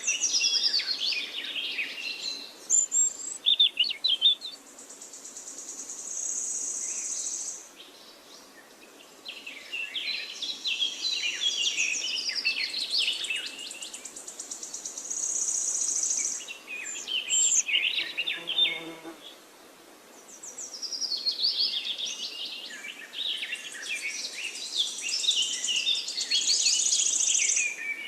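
A songbird singing long phrases of rapid, varied notes, a pause of a second or two between them, each phrase ending in a high, even trill. Just past the middle, a short lower call.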